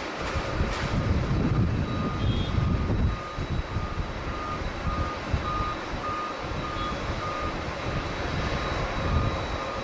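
Strong wind buffeting the microphone in gusts over a steady airport rumble, with a vehicle's reversing beeper sounding about twice a second from about two seconds in.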